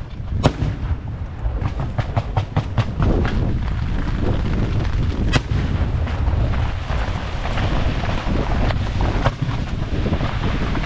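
Fireworks going off in a run of sharp bangs, bunched close together about two seconds in, with a loud single bang around the middle, over a continuous low rumble.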